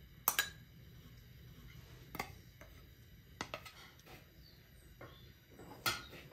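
Metal spoon clinking and scraping against a large enamel bowl of pilaf: four or five sharp clinks with brief ringing, the loudest just after the start and near the end.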